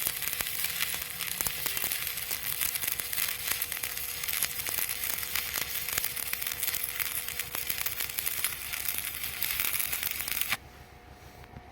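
Stick (arc) welding: the electrode's arc crackling and sizzling steadily while laying a bead, then cutting off suddenly near the end as the arc is broken.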